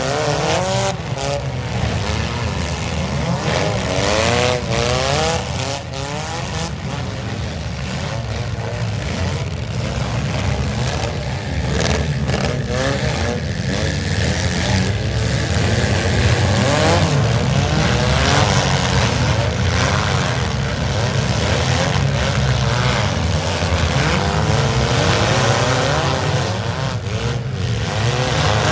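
Several demolition-derby compact cars with engines revving hard and rising and falling in pitch as they push and ram one another, with repeated sharp crunches of metal hitting metal scattered throughout.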